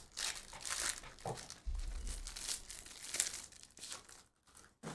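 Foil trading-card pack being torn open and crinkled by hand, an irregular crackling that dies down near the end.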